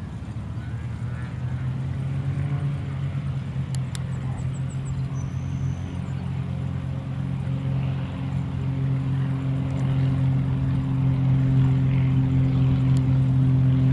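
Light aircraft's piston engine and propeller droning at a steady pitch, growing steadily louder as the plane approaches.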